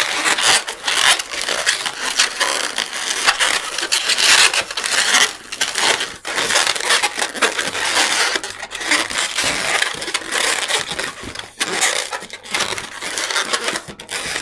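Inflated 260Q latex modelling balloon being twisted and squeezed by hand into bubbles, its rubber squeaking and rubbing, with brief pauses.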